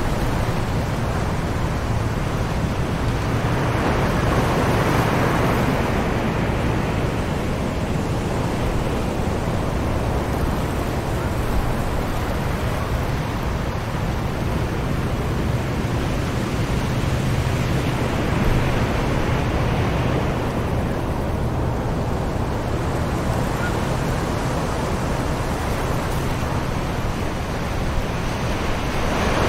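Distant ocean surf on a beach: a continuous wash of waves with a low rumble, swelling now and then as a wave breaks and runs in.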